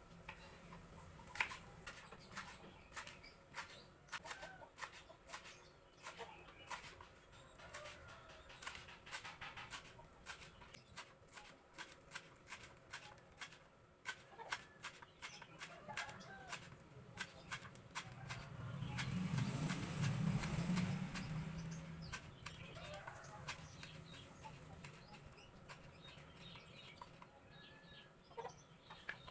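Domestic chickens clucking in the background, with scattered light clicks and taps throughout. A low rumble swells and fades about two-thirds of the way through.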